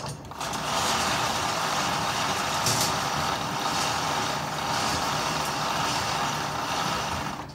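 Loud, steady rushing noise that starts and stops abruptly, with no shots in it.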